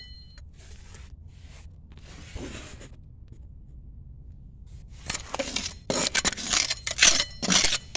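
Old basement window's wire-mesh screen and frame being worked loose by hand: a few faint scrapes, a near-quiet pause, then about five seconds in a quick run of harsh scraping and rattling.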